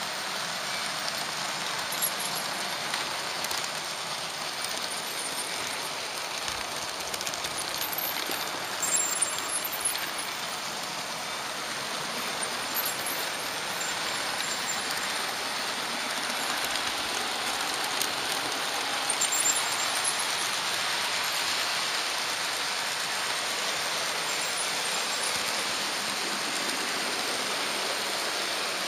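Steady rushing running noise of a Märklin HO-scale model locomotive travelling along the track, heard close up from a camera riding on it, with a few sharp clicks scattered through.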